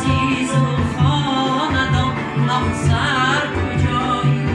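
A song with a male voice singing over instrumental backing, the bass pulsing about twice a second.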